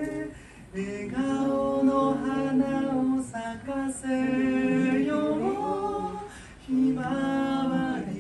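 A voice singing a slow, simple melody without accompaniment, in long held notes with short pauses between phrases.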